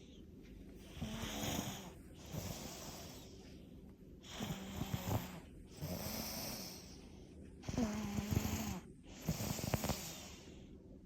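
One-year-old toddler snoring heavily in her sleep: a rattling snore on each breath, coming every second or two, several breaths in a row.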